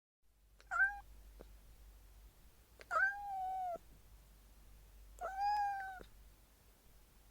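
Domestic cat meowing piteously: three separate meows, a short one about a second in, then two longer drawn-out ones.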